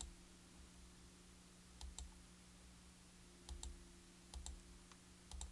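Faint sharp clicks, mostly in close pairs, coming four times over a steady low hum.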